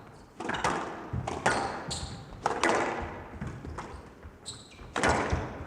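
A squash rally: the ball knocks sharply and irregularly off rackets and the court walls, and court shoes squeak twice on the floor.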